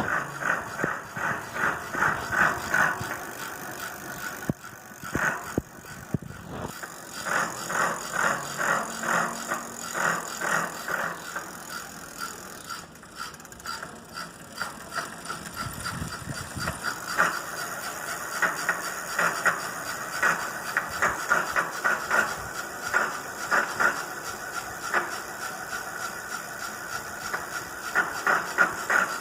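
Freewheel ratchet (catraca) of a 29-inch-wheel bicycle clicking rapidly as the rear wheel turns without pedalling. The clicking comes in waves, speeding up and easing off, with quieter stretches twice.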